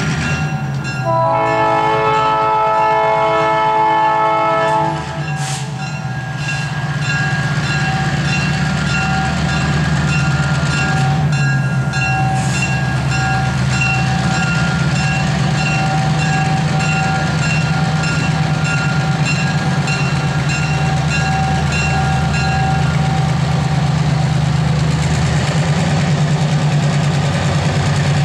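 CSX diesel freight locomotives passing: a multi-note air horn sounds for about four seconds near the start, then a bell rings in an even pulse until a few seconds before the end, over the steady deep drone of the diesel engines and the rumble of the train rolling by.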